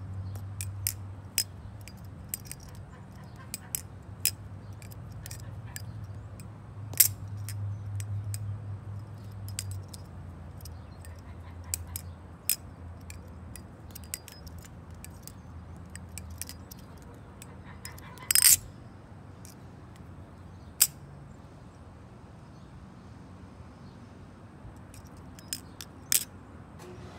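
A balisong (butterfly knife) being flipped in the hand: its handles swing and clack shut, giving irregular sharp metallic clicks, with a short louder rattle about two-thirds of the way through.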